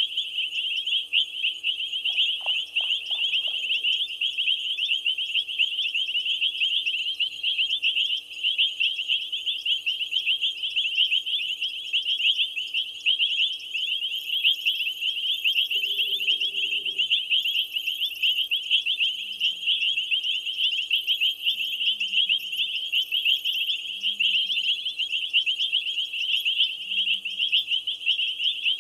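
A steady chorus of night insects: a high-pitched, rapidly pulsing trill. Faint low calls, each falling in pitch, repeat every two to three seconds in the second half.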